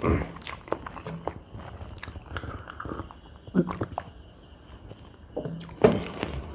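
Close-miked mouth sounds of eating rice and beef curry by hand: wet chewing, biting and lip smacks, with swallows from a glass of cold drink around the middle.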